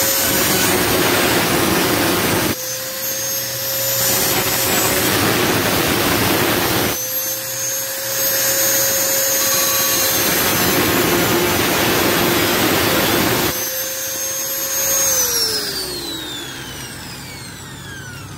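Angle grinder with a cutting disc running at a steady whine while it cuts a steel drink can open, in three long passes of harsh grinding noise. About fifteen seconds in the grinder is switched off and its whine falls as the disc spins down.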